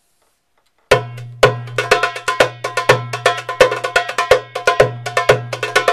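Darbuka (doumbek) playing the Masmoudi rhythm, starting about a second in: deep ringing dum strokes in the centre of the head among quick, sharp tek and ka strokes at the rim, with fast fills between the main beats.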